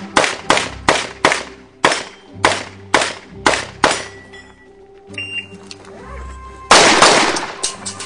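Rapid handgun shots during a practical shooting stage, about nine in the first four seconds at two to three a second. After a pause there is a louder, longer burst of noise about seven seconds in. Background music runs underneath throughout.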